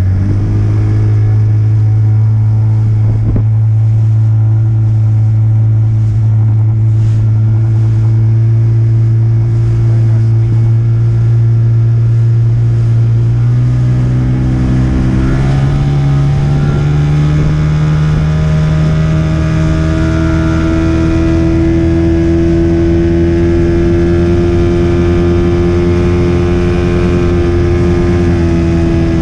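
40 hp Mariner outboard motor running steadily under way. About fourteen seconds in the throttle is opened and the engine note climbs over several seconds, then holds at a higher, steady speed.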